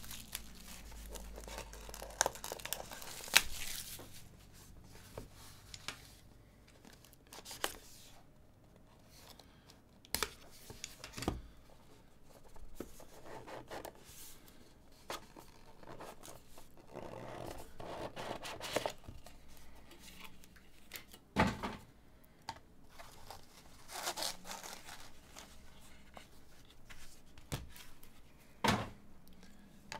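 Plastic shrink wrap crinkling as it is torn off a trading-card hobby box, mostly in the first few seconds. After that comes the handling of the box and cards in rigid plastic holders: scattered sharp clicks, taps and short scrapes.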